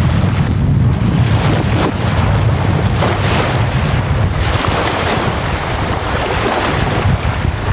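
Small lake waves washing up onto a sand beach, under a steady low rumble of wind on the microphone. The hiss of the wash rises about three seconds in and stays up for a few seconds before easing.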